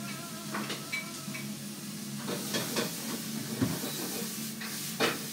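Restaurant room noise: a steady low hum with scattered light clinks and knocks of dishes and utensils, one louder knock near the end.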